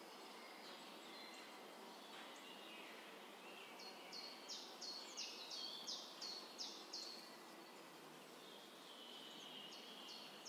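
Faint outdoor background noise with a small bird chirping a quick series of short, high notes, about three a second, from about four to seven seconds in and again near the end.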